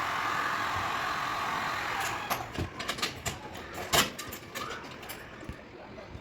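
A steady hiss that cuts off about two seconds in, then a run of sharp tool clicks and knocks, the loudest about four seconds in, as dent-repair work goes on.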